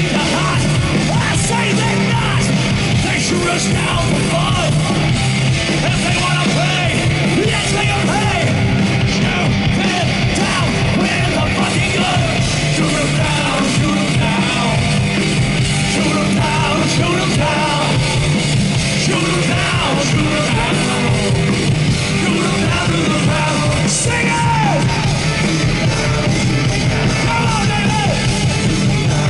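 Heavy metal band playing live and loud: distorted electric guitar through Marshall amplifiers, bass and drums, with a male lead singer's vocals over the top.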